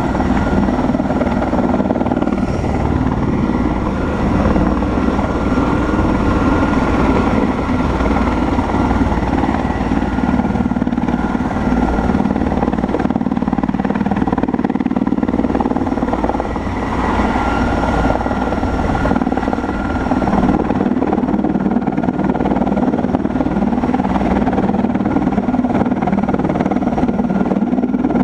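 Erickson S-64 Air Crane helicopter running: steady turbine whine over the heavy rumble of the rotors, holding steady throughout.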